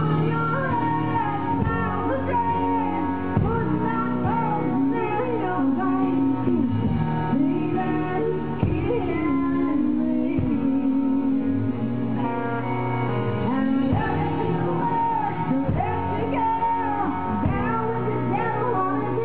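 A woman singing a country song live into a microphone, backed by a band with keyboard and guitar, her voice gliding over a steady accompaniment.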